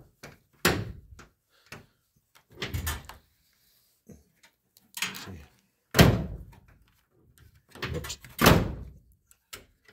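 Irregular dull thumps and knocks, about half a dozen, with the loudest about six seconds in and another near eight and a half seconds.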